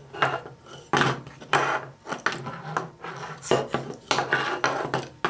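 Metal window channel and guide pieces being handled: a string of clinks and scraping rubs, with a steady low hum underneath.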